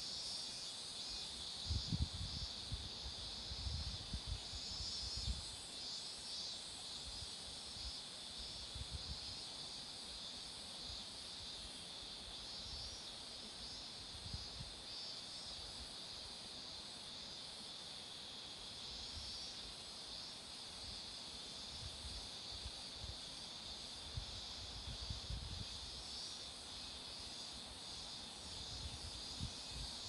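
Cicadas singing in a continuous chorus, a steady high shimmering buzz, with occasional low bumps on the microphone.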